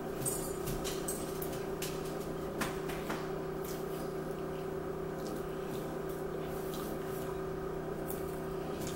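A steady electrical-sounding hum, with a few faint crunches and clicks of people eating chips, the clearest near the start and around three seconds in.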